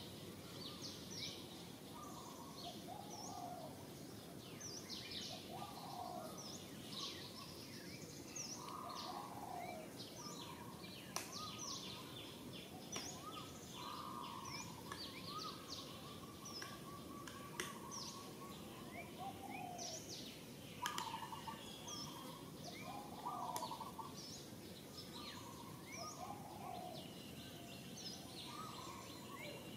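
Several birds chirping and calling: many quick high chirps, with lower whistled calls repeating every second or two, over a steady background hiss.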